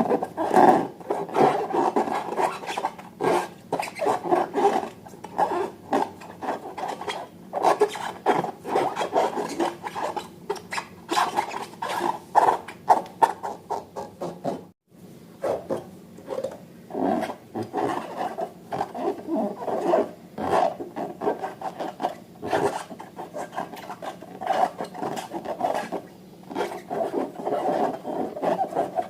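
Slime being worked by hand: irregular squishing, rubbing and sticky crackling, with many small clicks. It breaks off briefly about halfway through.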